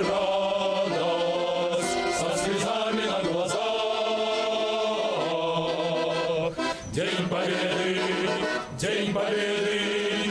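Men's choir singing outdoors, accompanied by an accordion, with a short break between phrases about six and a half seconds in.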